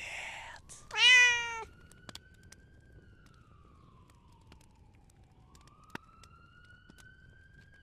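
A short, loud meow-like cry about a second in, then a faint siren wailing slowly up and down, with a single click about six seconds in.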